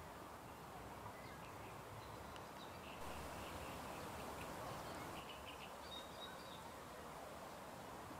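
Faint bird chirps, short and scattered, over a steady background hiss of park ambience.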